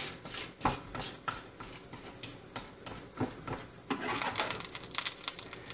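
Knife blade scraping and tapping on a wooden cutting board, mashing garlic with salt into a paste, with irregular soft knocks.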